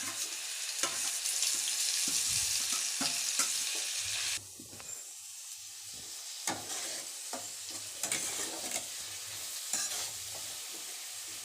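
Onion paste frying in hot ghee in a pan, sizzling while a spatula scrapes and stirs it. The sizzle is loudest for about the first four seconds, then drops suddenly to a quieter fry with frequent scrapes.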